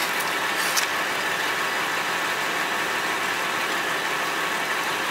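A vehicle engine idling steadily, an even running noise that holds without change.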